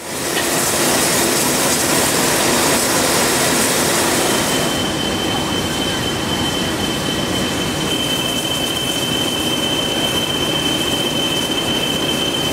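Saddle-tank steam locomotive standing at a platform, with a steady hiss of escaping steam. From about four seconds in, a thin high whine is held alongside it.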